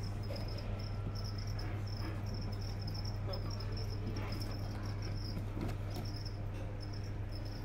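A cricket chirping steadily, short high chirps a few times a second, over a low steady hum, with a few faint knocks and rustles from a hand reaching into a wooden cage.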